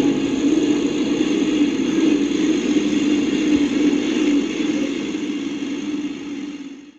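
A vehicle motor running steadily with a low drone. It fades away near the end and cuts off.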